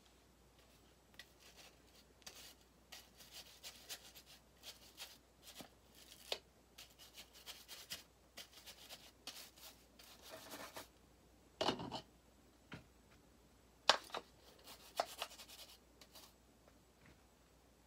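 Rusty aviation tin snips being scrubbed with a handheld brush to clean off rust: quiet, irregular scratchy strokes, with a couple of louder clacks about two-thirds of the way through.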